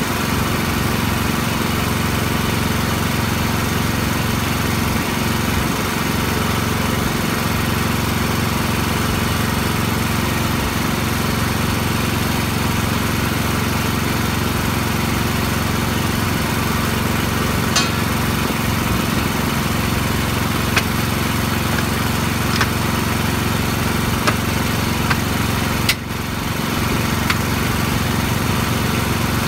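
A small engine running steadily at one constant speed throughout. Several short, sharp metal clinks sound over it in the last third.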